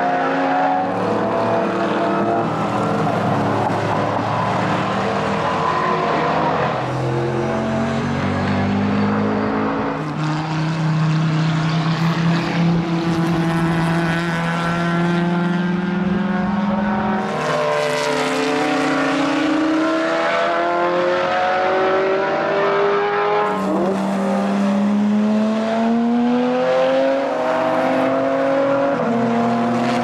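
Several racing car engines accelerating hard one after another, their notes overlapping. Each note climbs in pitch and then drops back as the cars change gear.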